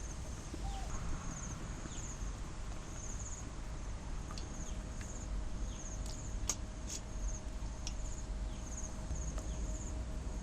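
Insects chirping in short high trills, repeating about once a second, over a low rumble. A couple of sharp clicks sound about two-thirds of the way through.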